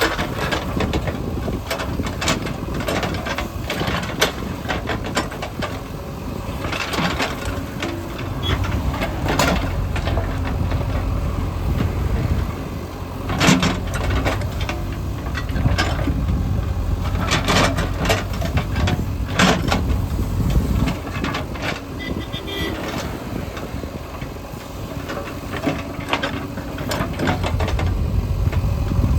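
Diesel engines of heavy construction machinery running steadily, with scattered clanks and knocks. The rumble grows heavier for a stretch in the middle, and one sharp clank stands out about halfway through.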